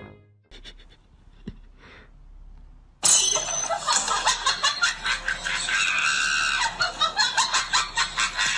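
A person laughing and shrieking loudly in rapid choppy bursts, starting abruptly about three seconds in after a near-quiet stretch with a faint click.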